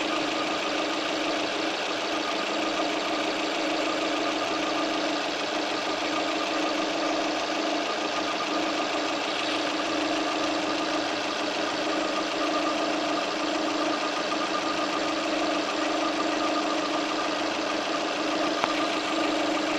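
Car engine running steadily at idle with a rough, rattling noise that the owner attributes to worn timing chain tensioners.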